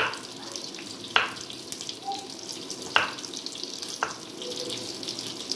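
Kitchen knife chopping an onion on a wooden cutting board: four sharp knocks of the blade against the board, a second or two apart, over a steady hiss.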